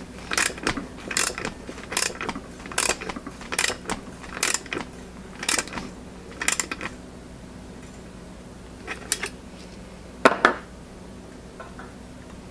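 Ratcheting socket handle clicking through repeated short strokes, about one a second, as it tightens a brass valve fitting into the threads of a steel pressure-tank lid. It stops after about seven seconds, and a single sharp knock comes about ten seconds in.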